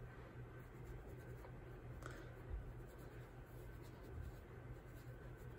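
Faint, soft scratchy swishes of a makeup brush stroking over the skin of the cheek and temple, blending in blush, over a low steady room hum.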